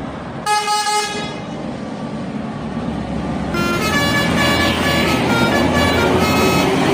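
Indonesian bus telolet horn: one short blast about half a second in, then from about halfway through a longer run of changing tones that grows louder, over the noise of a passing vehicle.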